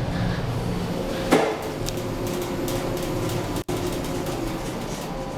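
Kone EcoDisc elevator car standing at a landing with a steady machine hum, and a single sharp clunk about a second in, typical of the car doors and door operator working.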